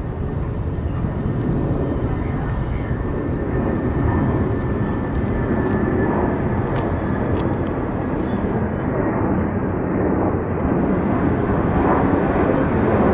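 Jet engines of a Nepal Airlines Airbus A330 climbing out after takeoff: a steady rumble with a faint thin whine over it in the first half, swelling slightly near the end.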